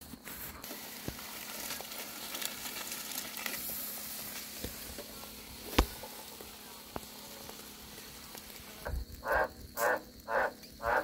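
Ribs sizzling on a wire grill over a crackling wood campfire, with scattered pops and one sharper crack about six seconds in. From about nine seconds a frog calls loudly in a steady run of croaks, about two a second.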